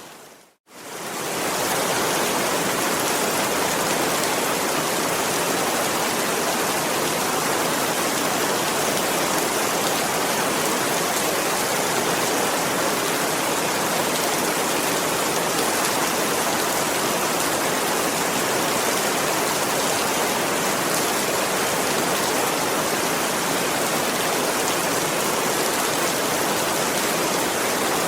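Steady, dense rainfall hiss. Just after the start it fades out to silence for a moment and fades back in within about two seconds, like the seam of a looped recording, then runs on evenly.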